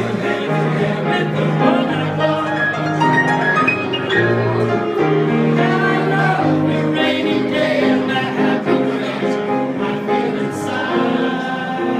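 Music: a soft pop ballad passage with held, changing notes between sung lines.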